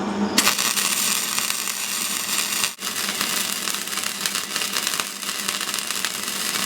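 Hobart MIG welder arc crackling steadily while a worn backhoe bucket shank is built up with weld. The arc starts about half a second in, breaks off briefly a little before the three-second mark, then strikes again.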